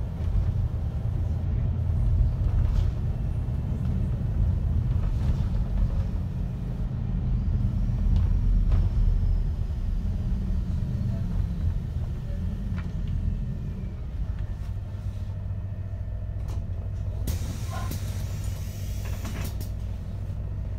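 MAN Lion's City city bus heard from inside, with a steady low engine and road rumble as it drives, easing off as it slows. A couple of seconds of hissing air come near the end as it comes to a stop.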